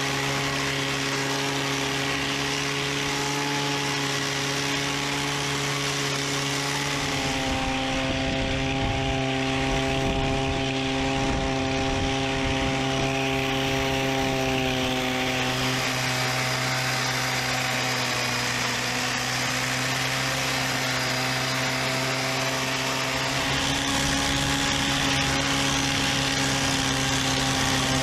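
Small engine of a backpack tea-harvesting machine running steadily at working speed while its cutter bar trims tea shoots. Its pitch steps slightly a few times.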